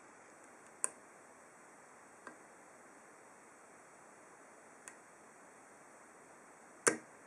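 Four separate sharp clicks from a hook pick working the pins of an ASSA Ruko 2 padlock's 7-pin snowman core under tension, the loudest near the end, over a faint steady hiss.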